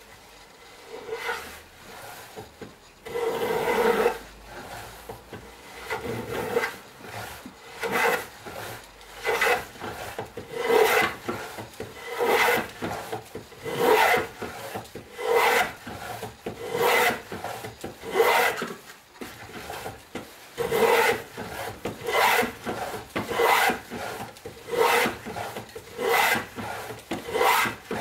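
Antique wooden plough plane cutting a groove along a board's edge: the steel iron shaves the wood in repeated rasping push strokes, about one every second and a half, with a short pause about two-thirds through.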